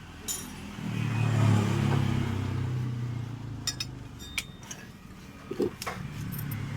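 A low motor hum swells about a second in and slowly fades, with a few light metallic clinks of small metal parts being handled.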